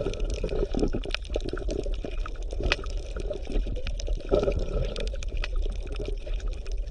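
Water bubbling and gurgling, with many small irregular clicks, at a steady level.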